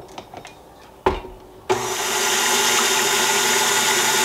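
A knock about a second in, then a KitchenAid Artisan tilt-head stand mixer's motor switches on and runs at a steady whir, turning its dough hook through a thin mixture of warm milk, yeast and sugar.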